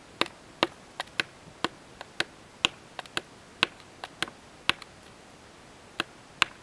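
Mallet striking the handle of a bookbinding awl, driving it through paper into a plywood board to punch sewing holes for a handmade book. About a dozen sharp taps come at roughly two a second, then a pause, then two more near the end.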